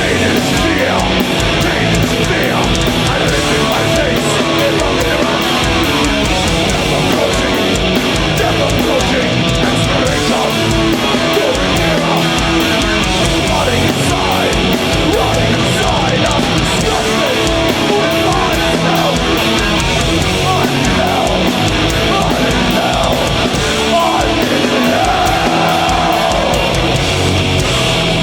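Heavy metal band playing live at full volume: distorted electric guitars, bass and drums.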